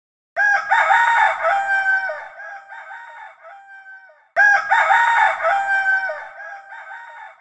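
Rooster crowing twice, about four seconds apart, each crow trailing off in fading echoes, as a wake-up call at dawn.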